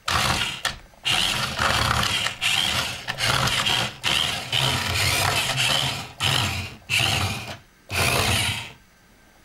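Toy RC car's small electric drive motor and gears whirring in about a dozen short bursts as the throttle is pulsed, stopping shortly before the end. Its hard rubber rear wheels spin on the wooden tabletop and get no traction.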